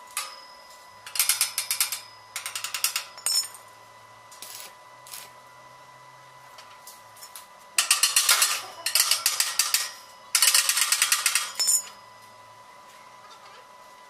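Welding work on a steel flat bar: four bursts of fast metallic crackling ticks, each about one to two seconds long, the last two the longest.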